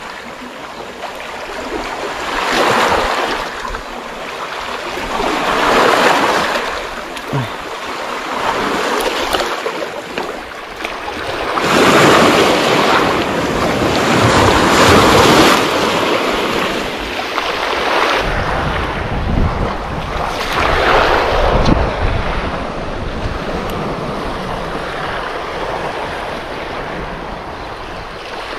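Small sea waves breaking and washing up a pebble beach, swelling and falling back every few seconds. In the second half, wind buffets the microphone with a low rumble.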